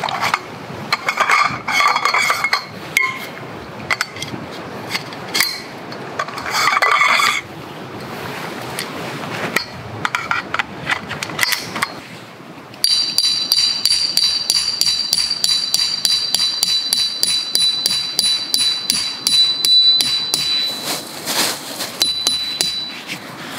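Metal tarp poles clinking and knocking together as they are handled. About halfway through, a hammer starts driving a steel tent peg into the ground with quick, even blows, about three a second, and the struck peg rings with a steady high tone.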